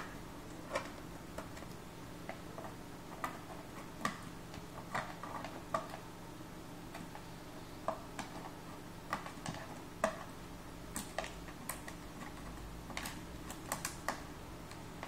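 Small irregular clicks and taps of a screwdriver tip prying at plastic tabs and ribbon-cable connector latches inside an opened laptop, several in quick succession near the end, over a faint steady hum.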